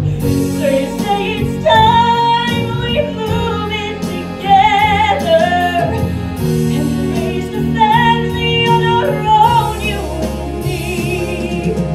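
A female voice singing a show tune, holding long notes with wide vibrato, over steady instrumental accompaniment.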